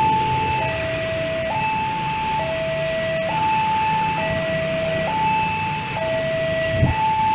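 Two-tone hi-lo warning siren steadily alternating between a higher and a lower pitch, each note held just under a second, over a low rumble of vehicles, with a short thump a little before the end.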